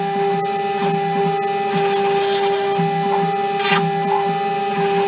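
CNC router milling a stamp into a blue plastic block: the spindle runs with a steady high whine while the axis stepper motors buzz and change pitch as the cutter moves along its path. A brief sharp burst of noise comes a little past halfway.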